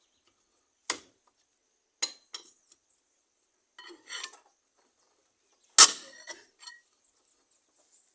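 Lug wrench clinking and knocking on a pickup's wheel nuts as they are loosened: several separate sharp metallic knocks, the loudest about two-thirds of the way through.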